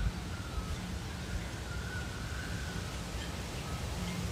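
Wind on the microphone outdoors: a steady low rumble, with a single knock right at the start and faint thin high tones drifting in the background.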